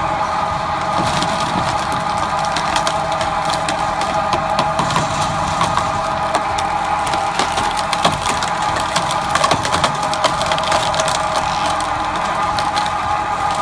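Firewood processing machine running with a steady whine, while wood cracks and splinters as logs are split.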